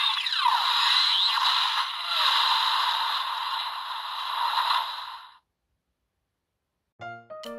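Electronic whooshing, sweeping sound effects from a Kamen Rider toy transformation belt, cutting off about five seconds in. After a short silence, music with piano-like notes starts near the end.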